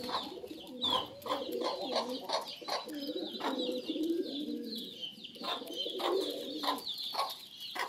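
Pigeons cooing, their low calls rising and falling, with many short taps and some high chirps mixed in.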